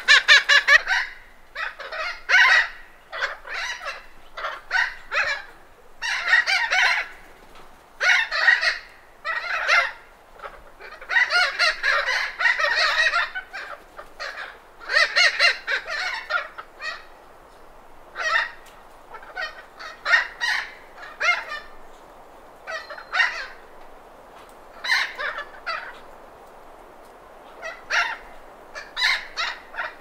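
Thick-billed parrots giving repeated alarm and contact calls, some singly and some in quick runs, over background wind noise.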